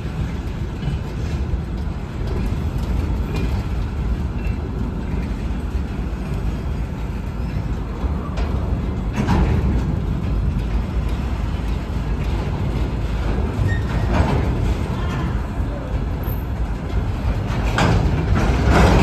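ChME3 shunting diesel locomotive's six-cylinder diesel engine running with a steady low rumble. A few short knocks come through, about halfway and near the end.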